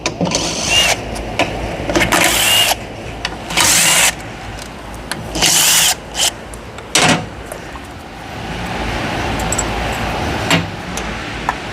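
Cordless power tool running 10 mm bolts out of a CVT transmission's filter cover in about five short bursts, each under a second. A steady hiss follows in the last few seconds.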